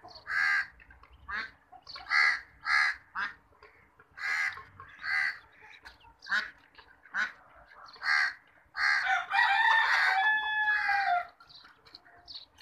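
Farmyard fowl giving short repeated calls, about one every half second or so. Near the end a rooster crows once for about two seconds, the loudest sound, falling in pitch as it ends.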